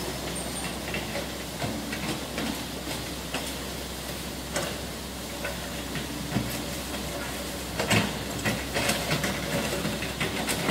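Small hydraulic excavator working on storm debris: steady engine noise with a rushing hiss and scattered clanks and knocks of the bucket on rock, a cluster of louder knocks near the end.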